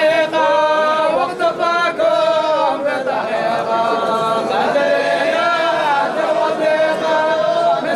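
Group of men chanting together unaccompanied in a Sufi hadrah dhikr, with long held notes sung in unison.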